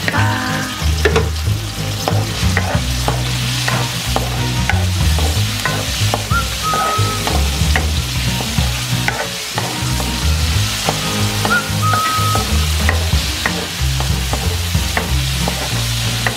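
Sliced chicken breast and onion sizzling in hot oil in a metal wok, with a wooden spatula scraping and knocking on the pan in many short strokes as it is stirred.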